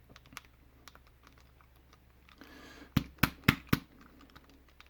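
Medeco padlock being handled with light small clicks, then four sharp taps in quick succession, about four a second, a little after three seconds in.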